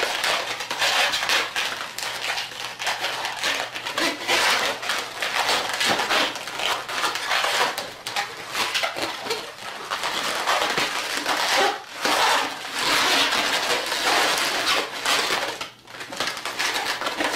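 Inflated latex modelling balloon being twisted and handled: continuous rubbing and crackling of the latex under the fingers as petal twists are made, with a short lull near the end.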